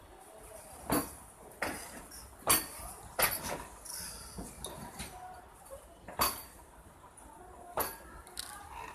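Train 18 electric trainset rolling slowly past, its wheels giving several sharp metallic clanks over the track at uneven spacing, over a low steady running noise.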